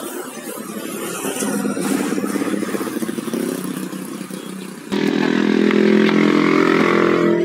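A motorcycle engine passes by, swelling and fading. About five seconds in a louder, steady engine or motor hum abruptly takes over.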